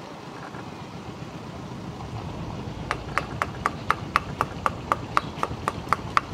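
A date palm tapper's knife striking the palm's crown in quick, even strokes, about four a second, starting about three seconds in, over a steady low hiss.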